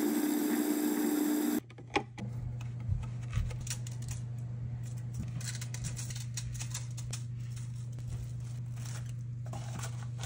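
Small food processor motor running as it blends graham cracker crumbs with coconut oil, cutting off suddenly about a second and a half in. Then light clicks, taps and scrapes follow as the crumbs are scooped out of the plastic bowl with a spatula.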